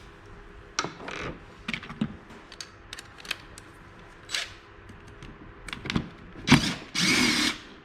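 Clicks, taps and clatter of chainsaw parts being handled and pulled apart during disassembly, with a louder scrape of about half a second near the end.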